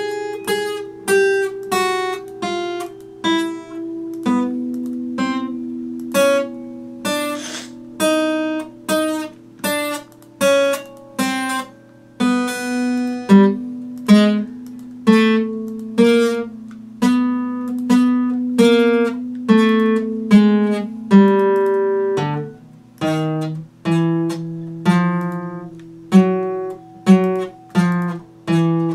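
Epiphone acoustic guitar played in a slow, even rhythm of plucked strokes, roughly one a second, with lower notes ringing on beneath them.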